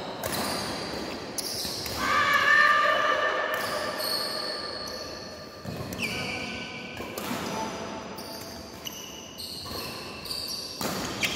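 Badminton rally: rackets strike the shuttlecock in a string of sharp hits about every second or so, with players' footwork on the court between them, echoing in a large hall.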